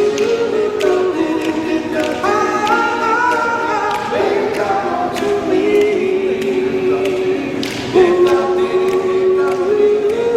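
A vocal group singing a cappella in sustained close harmony, an upper line rising about two seconds in, over a steady beat of short clicks.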